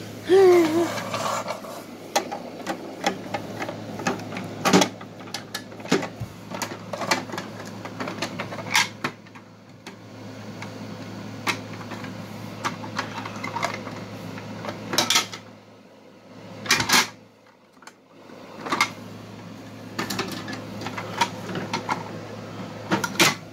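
Plastic toy garbage truck being pushed over a wooden floor and its parts worked by hand: irregular clicks, knocks and clatters of plastic, over a steady low hum that drops out for a moment past the middle.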